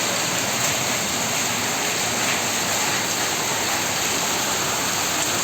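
Heavy rain falling steadily, a dense even hiss of water with no let-up.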